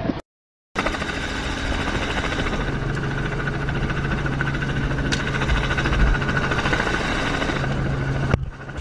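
Light helicopter's engine and rotor running steadily, heard from inside the cockpit, a constant drone with a steady hum. It starts after a brief silence about half a second in and cuts off shortly before the end.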